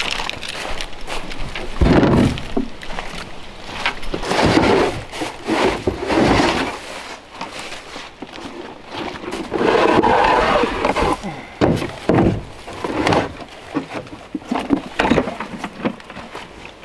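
A wooden crate of split firewood and other camping gear being lifted out of a pickup bed and set down: irregular knocks and thumps of wood, logs clattering in the crate, and footsteps in dry leaves.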